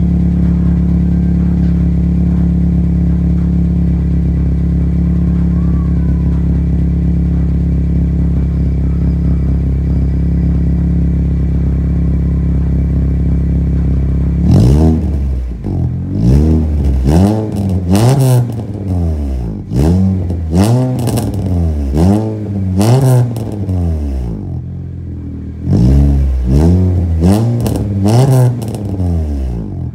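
Straight-piped car exhaust on a cold engine. It idles steadily for about the first fifteen seconds, then is blipped in a run of quick revs that each rise and fall, with a short pause partway through.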